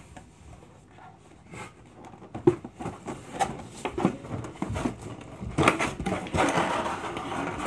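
Hands rummaging in a cardboard box: scattered knocks and rustles of cardboard and packing, thickening into a longer rustle about two seconds before the end.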